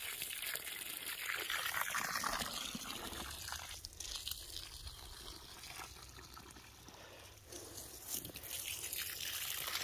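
Water from a garden hose splashing and trickling onto soil, easing off for a few seconds in the middle and picking up again near the end.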